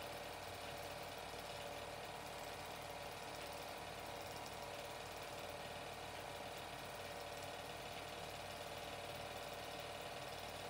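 Standard 8mm film projector running, a steady mechanical hum and whir from its motor and film transport that does not change.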